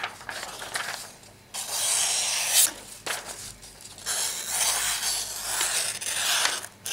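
Freshly stropped Buck Vantage knife blade slicing through paper: two long cuts, one about a second and a half in and a longer one from about four seconds. The cuts run smoothly, the sign of a sharp edge.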